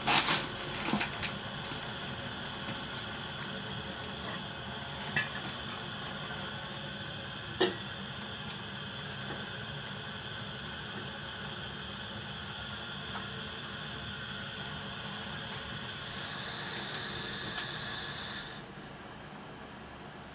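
Gas hob burner on high, hissing steadily under a covered pan of kale and potatoes, with a couple of light knocks as the pan lid is handled. About 18 seconds in the hiss drops suddenly as the flame is turned down.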